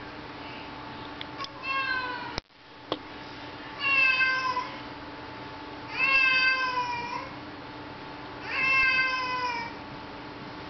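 Domestic cat meowing insistently, four drawn-out meows each about a second long that sag slightly in pitch at the end, spaced a couple of seconds apart: the cat is asking to be let outside.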